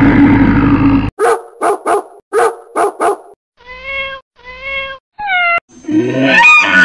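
A run of cartoon animal sound effects. A bear's growl fills about the first second, followed by six quick dog barks, then three short cat meows, the last falling in pitch. A longer, louder animal call starts near the end.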